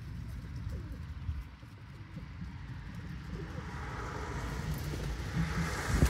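Outdoor city background: a steady low rumble, with a hiss swelling from about halfway and a sharp thump at the very end.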